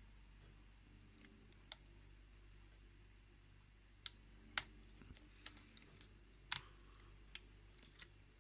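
Faint, irregular metallic clicks of a lock pick working the pin stack of a challenge lock under tension, a dozen or so scattered ticks over a low steady hum.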